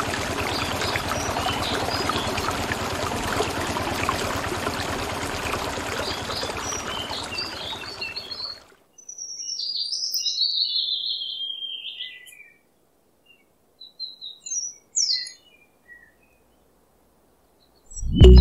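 Water pouring from a small pump's outlet pipe into a shallow tank, a steady splashing stream that cuts off suddenly about halfway through. Then birds chirp in short scattered phrases for several seconds.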